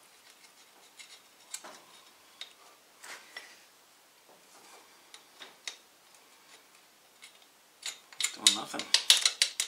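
Light clicks, taps and rubbing of battery cables and tools being handled while wiring an engine's starter. About eight seconds in, a much louder stretch of crackling sounds takes over.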